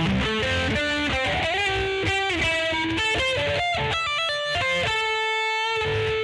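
Electric guitar played through a Peavey Vypyr VIP 2 modelling amp: quick single-note lead lines with string bends, ending on one long held note near the end.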